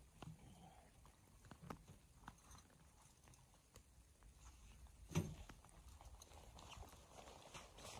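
Faint footsteps on snow-dusted grass, with scattered light taps and one louder thump about five seconds in.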